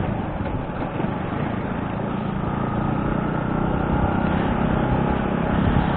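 Motor scooter riding in traffic: wind buffeting the rider-mounted camera's microphone over the running engine, whose steady hum grows stronger about halfway through.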